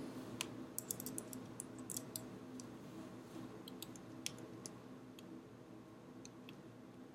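Faint, irregular light clicks of small plastic gears, shafts and parts of a Tamiya double gearbox kit being handled and fitted together by hand. The clicks come thickest in the first few seconds and thin out after.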